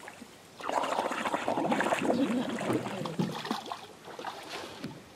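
Water splashing and bubbling around a scuba diver paddling face-down at the surface as he goes under. It starts about half a second in and eases off in the last second or so.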